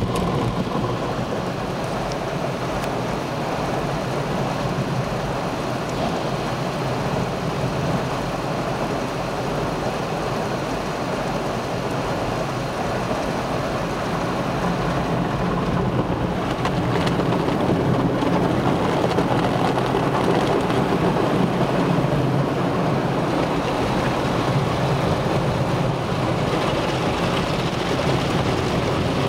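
Automatic car wash heard from inside the car's cabin: water and foam spraying steadily onto the windshield and body in a rain-like hiss. It grows louder about two-thirds of the way through, as the heavier wash reaches the car.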